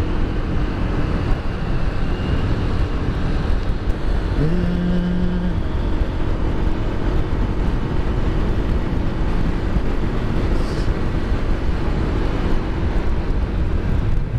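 Wind rushing over a helmet-mounted microphone while riding a motor scooter at steady cruising speed, with the engine's steady hum under it. A short low tone rises and holds for about a second, about four and a half seconds in.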